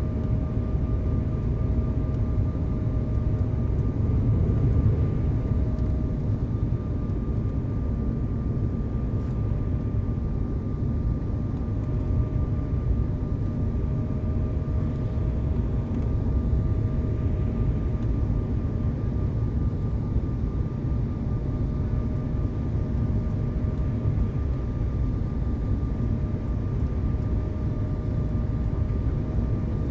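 Steady cabin roar of an airliner's jet engines and rushing air during its descent on final approach, flaps extended, with a thin steady whine over the rumble, heard from inside the passenger cabin.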